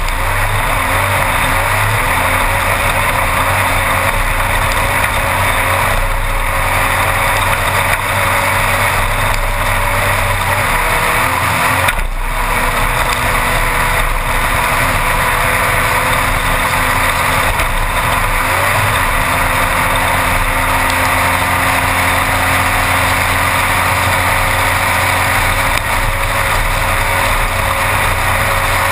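Class 1-1600 desert race car's air-cooled VW 1600 engine running hard, heard from inside the car over a loud, steady rush of road and wind noise. There is a momentary drop across the whole sound about twelve seconds in.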